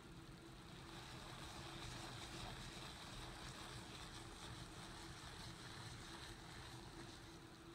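Faint, steady wet scrubbing of a soapy, foam-covered carpet mat by rubber-gloved hands with a scrub sponge.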